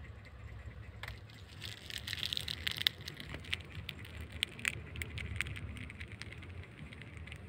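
Mother cat purring while her kittens nurse: a low, steady rumble, with scattered small clicks and a brief rustling about two seconds in.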